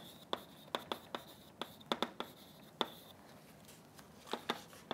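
Chalk writing on a blackboard: a run of sharp, irregular taps and clicks as the chalk strikes the board, with a pause of about a second and a half past the middle before a few more taps.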